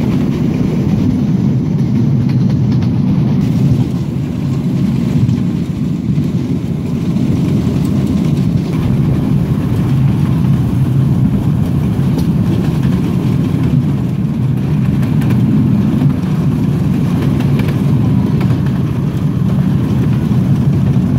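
Steady low rumble of a ride on a miniature railway train: the locomotive and carriages running along the track at an even pace.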